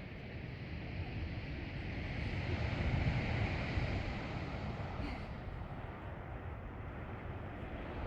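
Sea water washing, with wind rumbling on the microphone; the wash swells to a peak about three seconds in and then eases off.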